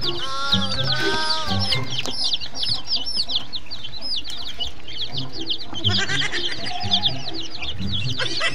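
A flock of chicks and ducklings peeping: a dense, continuous chorus of high, quick cheeps. It plays over background music with a steady low beat.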